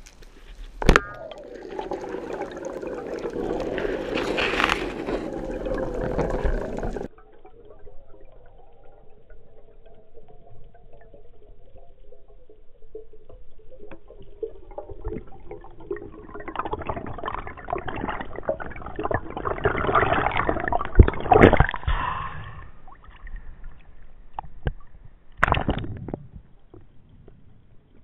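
Muffled underwater sound heard through a camera housing: loud rushing water noise that comes and goes, a steady hum between the noisy stretches, and a few sharp knocks.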